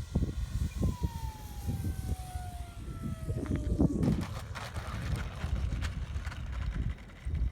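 Electric motor and propeller whine of an FMS 1400mm Corsair RC warbird, falling in pitch as it throttles back, over wind buffeting the microphone. About three and a half seconds in comes a rough rush of noise, followed by scattered rustling and crackling.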